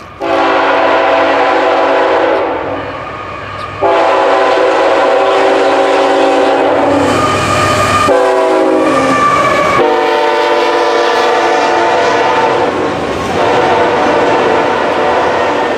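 CSX diesel freight locomotive's air horn sounding a chord: one long blast, a short break, then a second long blast whose pitch drops suddenly as the lead locomotive passes. The horn fades near the end, leaving the rumble and clatter of the intermodal stack cars rolling by.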